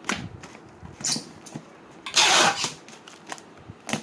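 Perfume atomizer spraying: a short spritz about a second in and a longer spray of about half a second just past the middle, with small clicks of the bottle being handled.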